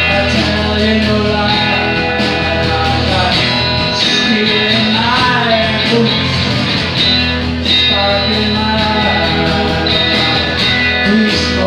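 Live rock band playing: drum kit, electric bass and guitars, with a regular beat.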